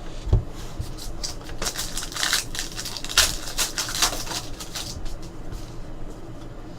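Trading cards being handled and flipped through, a quick series of card-on-card slaps, slides and rustles, busiest in the middle.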